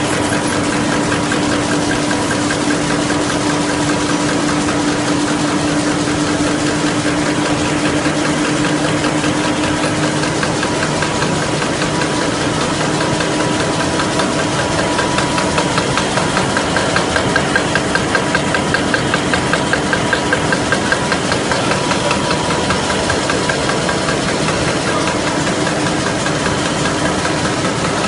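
FL Smithe RA WA envelope folding machine running at speed: a dense, fast mechanical clatter with a steady hum. For several seconds in the middle a louder regular beat comes through, about twice a second.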